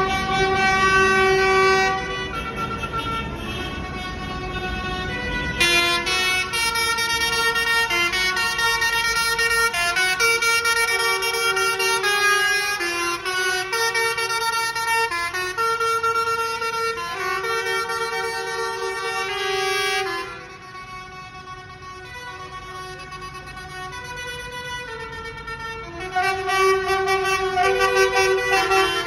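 Tractor horns honking in long, overlapping blasts at several pitches as a convoy of tractors drives past, over the low running of their diesel engines. The honking eases for several seconds about two-thirds of the way in, then picks up again near the end.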